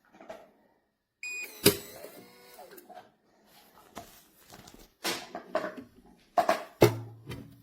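Electronic handgun safe being operated: a short electronic beep, then a loud sharp clack of the latch. Several more knocks and clicks follow as the metal box is handled, with two loud knocks near the end.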